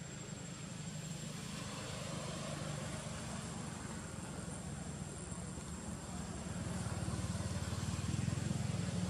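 An engine running, a low steady hum that grows louder about seven seconds in.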